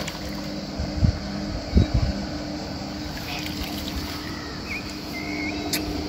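A fish being landed in a landing net: a few dull bumps about a second and two seconds in, over a steady low hum and background noise.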